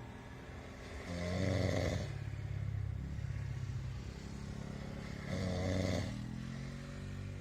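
Snoring in a slow, even rhythm: two louder snores about four seconds apart, the first about a second in and the next about five seconds in, with a lower, softer drone of breath between them.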